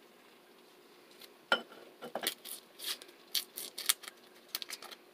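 Garlic cloves being peeled with a kitchen knife on a wooden cutting board: a run of sharp taps and clicks of the blade against the board and cloves, starting about a second and a half in.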